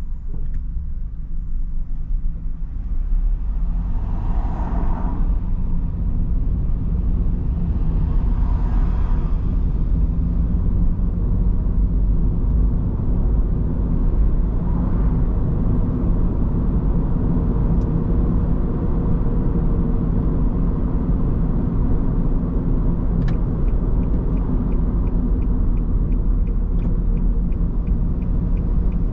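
Steady low rumble of a car driving on the road, engine and tyre noise, with a few swells of noise as other vehicles pass. A quick run of faint, evenly spaced ticks comes near the end.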